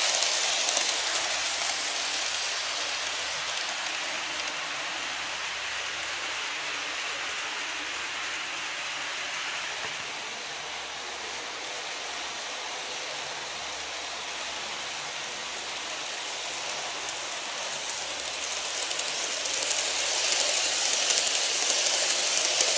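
Model train running on plastic track, making a steady rushing clatter of wheels and motor. It is loud as the train passes close at the start, fades as it runs off around the loop, and grows loud again as it comes back past near the end.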